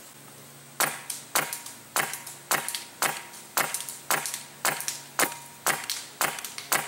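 Polar Star Fusion Engine HPA airsoft M4 firing single shots through a chronograph at a steady pace, about two shots a second, starting just under a second in.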